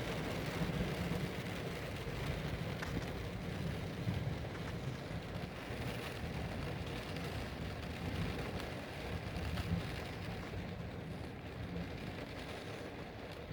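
Steady rain during a thunderstorm, an even hiss over a continuous low rumble, easing slightly near the end.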